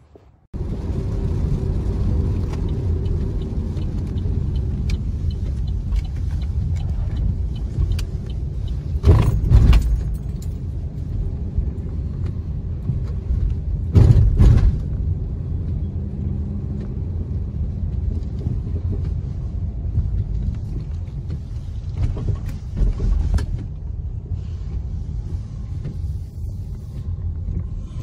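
Road vehicle driving, heard from inside the cabin: a steady low rumble of engine and tyres on wet pavement, with two louder bumps, about nine and fourteen seconds in.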